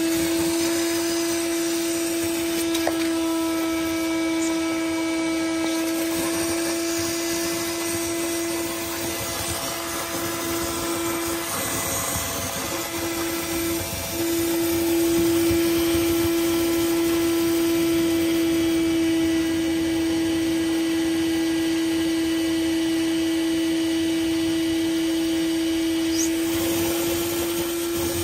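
A small 5-gallon shop vac running steadily with its hose held to an RV fresh-water tank's drain pipe, sucking out the remaining water. Its hum falters and breaks briefly about halfway through, then steadies again.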